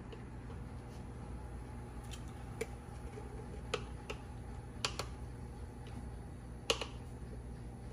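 A metal spoon clicking against a glass jar of minced garlic as it is scooped out, about five light, sharp clicks spread over a few seconds, the loudest near the end, over a low steady hum.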